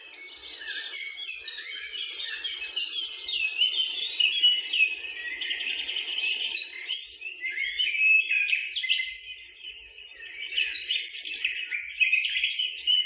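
Wetland bird chorus: many birds chirping and calling at once in a dense, overlapping tangle of short high notes, busiest in the middle and again near the end.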